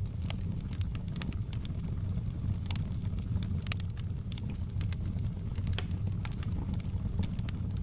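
Wood fire crackling: a steady low rumble of burning with irregular sharp pops and snaps scattered throughout.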